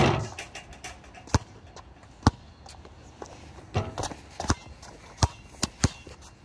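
A basketball hitting hard, one loud hit at the start that rings out, then single bounces on hard ground and three quick bounces coming closer together near the end.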